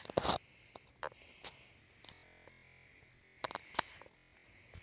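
Scattered light clicks and knocks from a phone being handled and carried: a cluster at the start, a few faint ticks in the first second and a half, and another cluster a little past three seconds in, with quiet stretches between.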